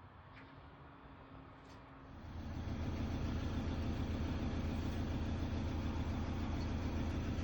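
A vehicle engine running steadily, coming in about two seconds in and then holding an even low hum.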